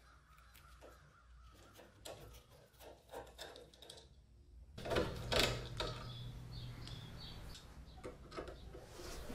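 Rusty screws in a Daisy airgun's steel frame being turned out with a socket driver: faint clicks and squeaks at first, then louder scraping creaks about five seconds in.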